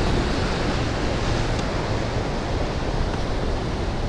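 Ocean surf washing over rocks: a steady rush of breaking waves, with some wind.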